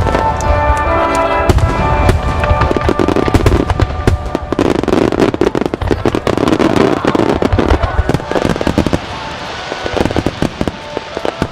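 Star Mine fireworks barrage: many shells bursting in quick succession with sharp bangs and crackle. Music plays clearly in the first few seconds, then fades under the bursts.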